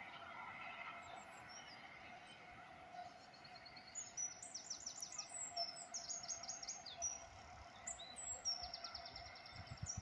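Songbirds singing: from about three seconds in, several rapid trills of repeated high notes and short chirps over a faint steady background.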